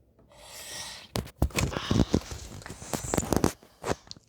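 Handling noise: a rustle, then from about a second in a quick, irregular run of clicks, knocks and rustling as objects are picked up and moved.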